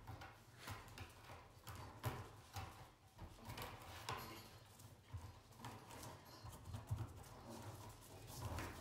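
Round rattan reed spokes and a wet weaver being handled: faint, irregular clicks and taps of reed against reed and the tabletop as the weaver is threaded over and under the spokes, with light rustling.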